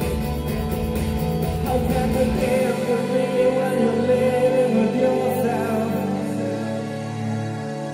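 Live rock band playing with the singer singing, guitar and keyboard under the voice. About two and a half seconds in, the low end and beat drop out, leaving the voice over sustained chords.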